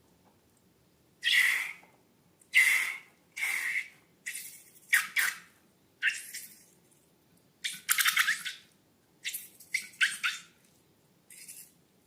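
Slime-filled balloons being handled: about eleven short squeaky, squishy bursts at irregular intervals, some crackly.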